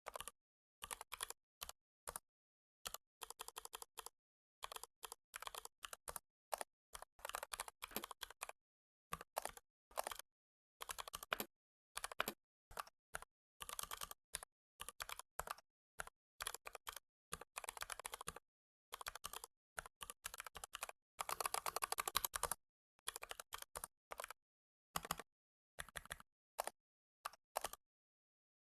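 Typing on a computer keyboard: rapid runs of key clicks in bursts, broken by short pauses.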